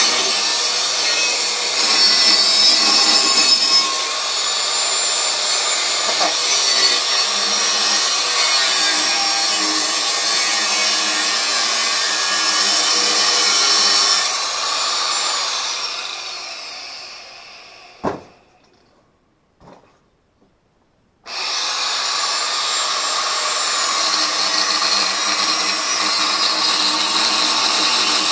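Electric angle grinder with a cut-off wheel cutting steel, its pitch shifting as it bites. About halfway through it is switched off and winds down; a single sharp knock follows, then a few seconds of quiet before the grinder starts up abruptly and cuts again.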